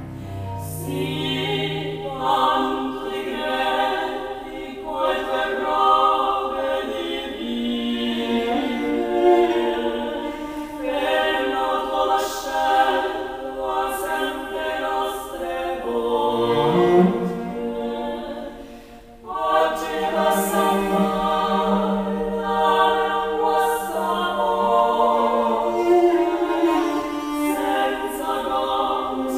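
Women's voices singing improvised polyphony in the Tuscan singing tradition: several sustained lines overlap in close harmony, with a brief drop about two-thirds of the way through before the voices come back in together. A cello's low notes fade out about two seconds in.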